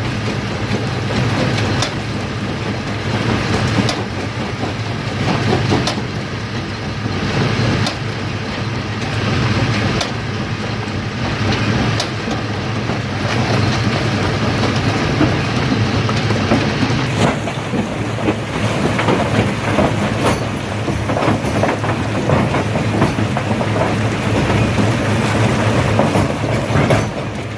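A large stone crusher working, its steady low machine rumble mixed with the clatter and cracking of rock being broken. Sharp knocks come about every two seconds in the first half, and the crackling grows denser from a little past the middle.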